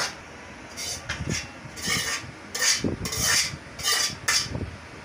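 A run of short, irregular scraping and rubbing noises, about eight in all, the loudest in the middle stretch.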